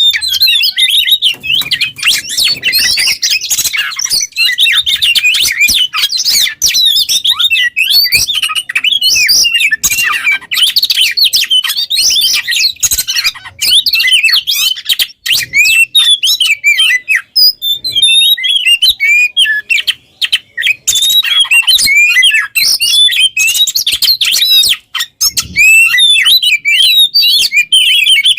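Oriental magpie-robin (kacer) singing a fast, continuous, varied song of chirps and whistles, broken by a couple of brief pauses in the second half.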